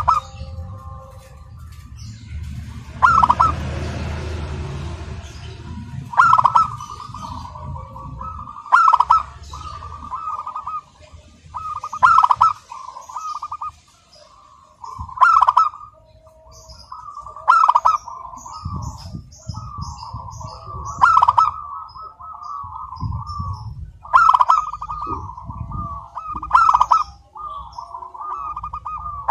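Zebra dove (perkutut) cooing its song in repeated phrases, each starting with a loud note and running on in quick cooing notes, about every two to three seconds.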